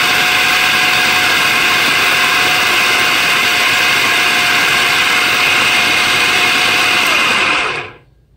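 Electric food chopper running steadily at full speed, its blade mincing onion, green chillies and boneless chicken. It switches on abruptly, then winds down and stops near the end.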